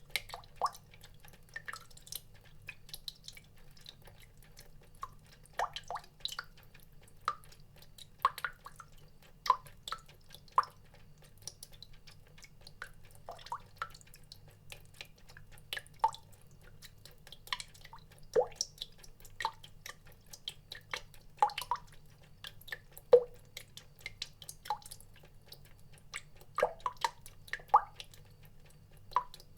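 Water drops falling at an uneven pace, roughly one to three a second, each a short pitched plink, over a faint steady low hum.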